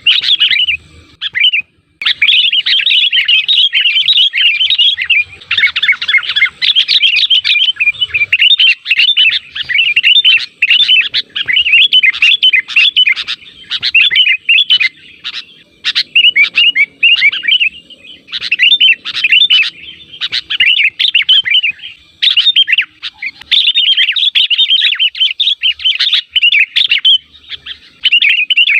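Sooty-headed bulbul (kutilang) song: rapid, bubbly chattering notes in quick runs, almost continuous with short breaks.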